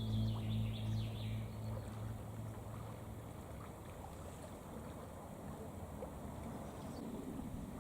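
Background music fading out in the first second or two, then a steady rushing of flowing river water carrying ice floes.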